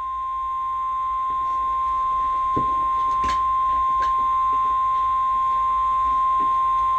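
NOAA Weather Radio warning alarm tone: one steady, unbroken 1050 Hz tone that swells slightly over the first couple of seconds and then cuts off suddenly. It signals that an alert message, here a tornado watch, is about to follow. A few faint static crackles sound under it.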